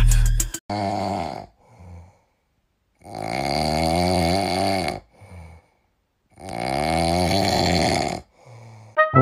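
French bulldog puppy snoring on its back: a shorter snore, then two long snores of about two seconds each, with short soft breaths between them.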